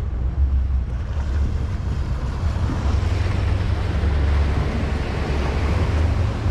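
A RIB boat running at speed: a steady low engine drone, with wind buffeting the microphone and water rushing past the hull.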